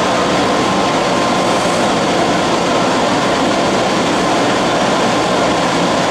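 Vintage IRT Lo-V subway cars rolling past along a station platform: a steady, loud rumble of wheels on rail with a faint steady whine above it.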